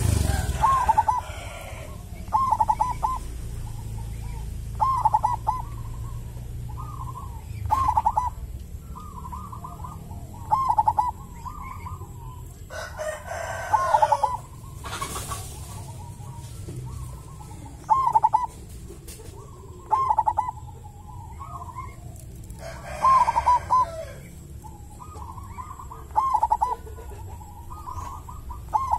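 Caged zebra dove (perkutut) cooing its staccato phrase over and over, a call every couple of seconds, in a big, thick, resonant voice. Twice a longer, louder sound of a second or so breaks in.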